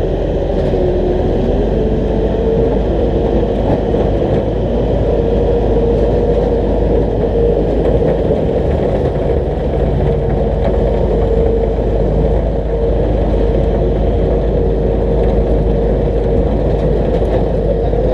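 Demolition derby car's engine running steadily at low revs, heard loudly from close by on its hood, with an even rumble and a steady drone that does not rise or fall.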